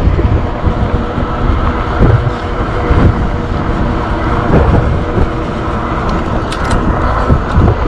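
ENGWE Engine PRO e-bike in motion: continuous road rumble with a faint steady whine over it.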